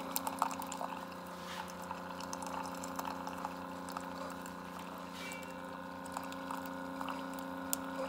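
Keurig K-Elite single-serve coffee maker brewing: its pump hums steadily while a thin stream of coffee pours into a ceramic mug.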